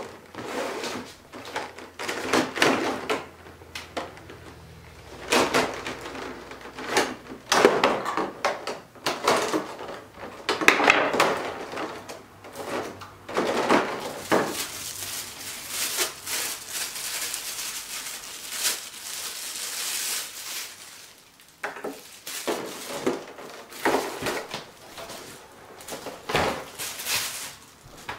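Stiff clear plastic blister trays from a figure's packaging being pulled apart and handled, giving an irregular run of crinkles and clacks of plastic.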